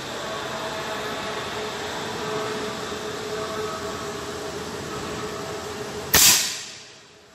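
A PCP air rifle with a Taiwanese barrel fires one shot about six seconds in: a single sharp crack that dies away within about a second, over a steady background hum.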